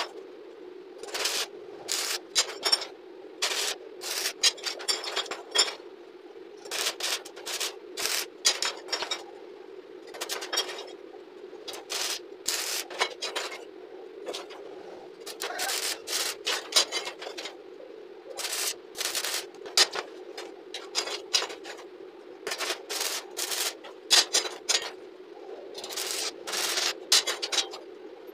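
Bent steel scroll pieces clinking, knocking together and scraping on a concrete floor as they are picked up and set down one after another, in irregular clusters, over a steady background hum.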